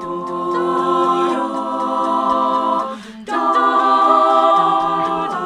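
A cappella group singing sustained wordless chords in close harmony: one held chord, a brief break about three seconds in, then a second, louder held chord.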